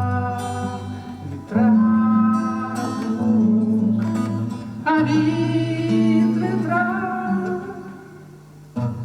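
Song performed live on acoustic guitar with a singing voice, the chords changing every second or two; the playing dies down near the end, then a fresh strum comes in.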